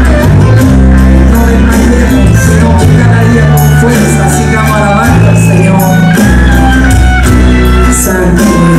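Live worship band playing: electric guitar and keyboard over held bass notes, with a steady cymbal beat.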